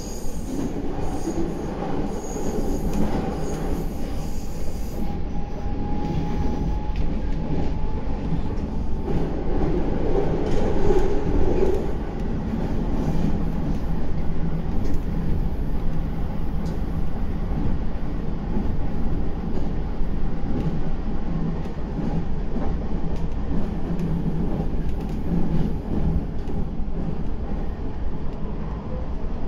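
Meitetsu 9500 series electric train running on the line, with a steady low rumble of wheels on rail heard from inside the front car. A thin whine rises slightly and holds over the first several seconds, then fades.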